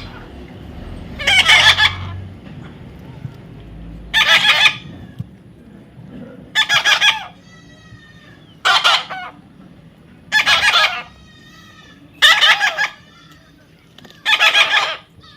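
Parrot squawking: seven loud, harsh, half-second calls about every two seconds, with softer falling chirps between them in the second half.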